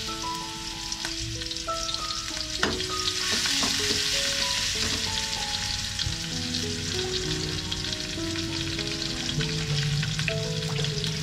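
Food dropped into hot oil in a wok, sizzling and crackling steadily, with a metal ladle now and then knocking against the pan as it is stirred.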